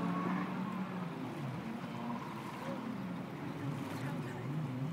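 Distant jet ski engine running across open water, its pitch wavering up and down in quick repeated swells in the second half as the throttle rises and falls.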